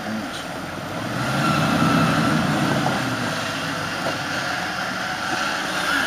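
Jeep engine running while its front winch pulls on a taut cable, a steady high whine over the engine rumble; the sound grows louder about a second in and then holds steady.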